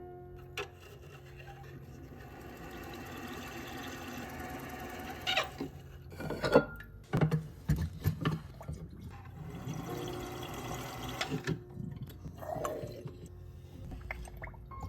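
Watch-cleaning machine swishing a basket of movement parts through cleaning solution, with a few sharp knocks and clatters around the middle.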